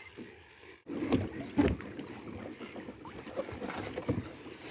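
Irregular knocks and rubbing of a fish measuring board being handled and set down against a sit-on-top kayak, loudest a little over a second in.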